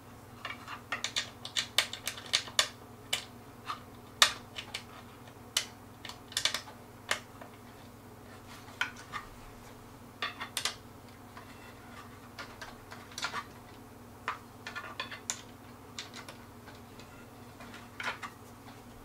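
Irregular light clicks and taps of metal bolts and the assembly tool against the wooden parts of a flat-pack table being put together, thickest in the first few seconds, over a faint steady hum.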